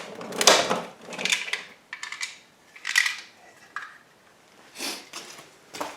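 Work on a pickup's interior door trim: a series of short plastic and metal clicks, scrapes and clatters, about half a dozen, spaced irregularly with quiet gaps, as trim pieces are pried and handled.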